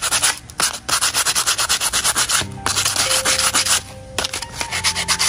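Fast back-and-forth rubbing strokes by hand, about eight to ten a second, breaking off briefly twice.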